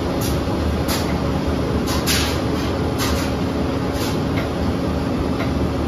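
Steady hum and airflow noise of a running household appliance, with one low tone held throughout and faint ticks about once a second.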